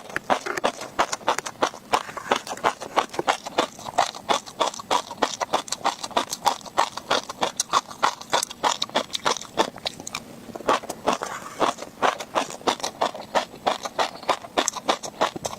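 Close-miked chewing of tobiko (flying fish roe), the tiny eggs crunching and popping as a dense run of crisp clicks, several a second, with a brief lull about ten seconds in.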